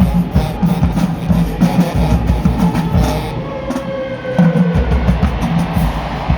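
College marching band playing: brass over a steady pounding drum beat, easing off briefly a little past the middle before the drums come back in full.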